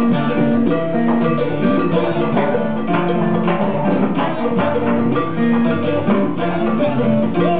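Live Latin band music: congas and timbales with a cymbal keep up a busy drum groove under pitched notes from an electric bass and other plucked strings.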